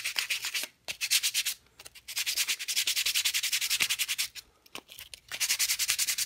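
Fine-grit sandpaper rubbed by hand over a purpleheart wood spinner body in quick back-and-forth strokes along the grain, pausing briefly a few times. This is the final light sanding that knocks down wood fibres raised by wiping the piece with a wet rag.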